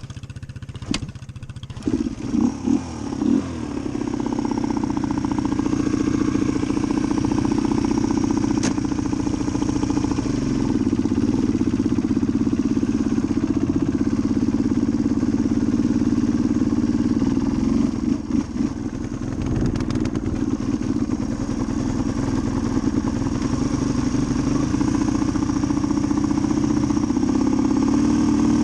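Suzuki DR250's single-cylinder four-stroke engine blipped a few times, then running at steady revs under way on the bike; it eases off briefly a little after the middle and picks back up.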